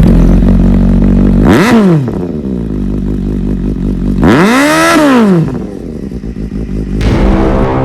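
Motorcycle engine idling and blipped twice, a short rev about a second and a half in and a longer one about four and a half seconds in, each rising and falling back to idle.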